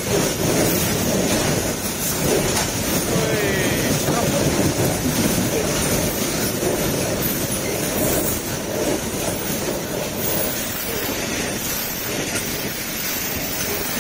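Freight train of loaded container wagons rolling past close by: a steady rumble and clatter of steel wheels on the rails, easing slightly toward the end.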